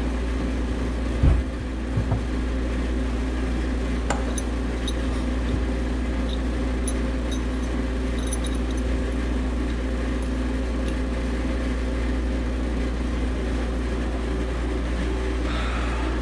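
Steady low hum of running machinery, with a thump about a second in, a couple of knocks just after, and a few light metallic clinks.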